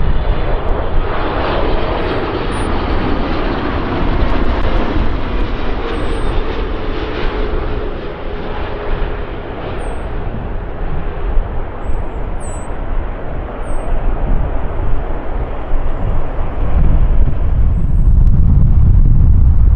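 Jet airliner engines passing close by on landing: a loud rushing noise with a faint whine that slowly falls in pitch, and a deep rumble that swells near the end.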